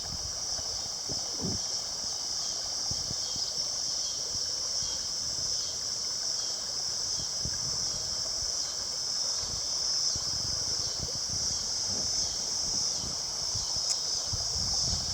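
A steady, high-pitched insect chorus over flowing river water that sloshes and rushes at the low end.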